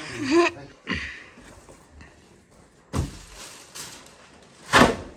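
Plastic-wrapped machine parts being handled and set down: packaging rustles, with two short sharp knocks, one about three seconds in and a louder one near the end.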